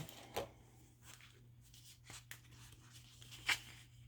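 Sheets of scrapbook paper being handled and turned, giving a few crisp rustles and snaps, the sharpest shortly after the start and another near the end, over a low steady hum.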